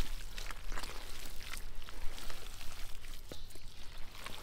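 Bare hands digging and pulling through thick wet mud, with scattered short squelches and slaps.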